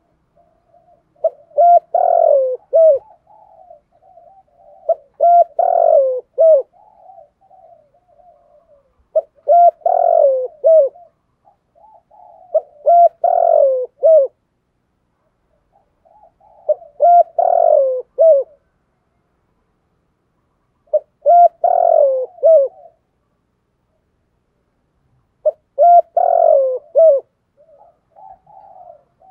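Male spotted dove cooing: a phrase of several coos, loudest in the middle, repeated seven times about four seconds apart, with softer low coos between the phrases.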